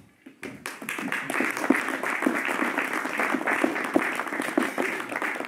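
Audience applauding, the clapping starting about half a second in and keeping up steadily.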